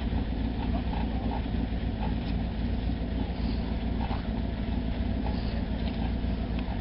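Truck engine idling steadily with a low, even rumble.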